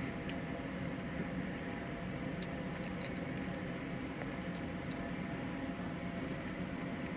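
A person chewing a mouthful of baked chicken, with a few faint clicks, over a steady low hum of room noise.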